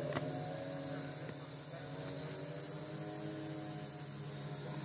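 Crane's engine running steadily with an even hum while it lifts the prefab cabin section.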